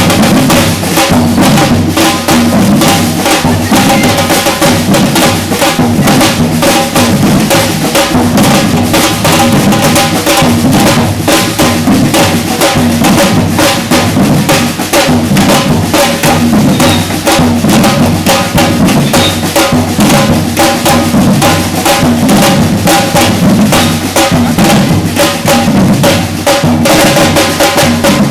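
Batucada percussion ensemble playing a loud, steady, driving rhythm, deep surdo-type bass drums under snare and other drums.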